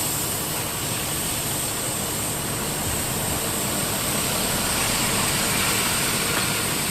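Steady vehicle engine and road noise with a constant high hiss, even throughout with no sudden events.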